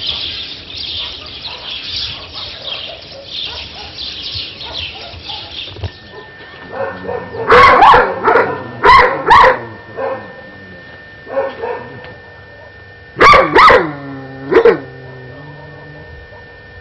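A dog barking: a quick run of loud barks about halfway through, then two more barks a few seconds later, the last trailing off downward.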